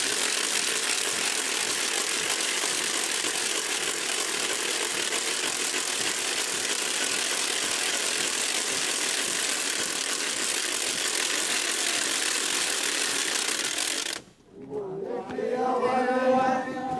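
A harsh, steady, rattling hiss with no clear pitch that cuts off suddenly near the end. Voices singing a chant then start up.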